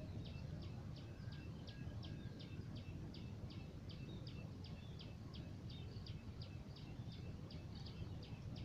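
A steady run of short, high chirps repeating about three times a second, over a low rumble of outdoor noise.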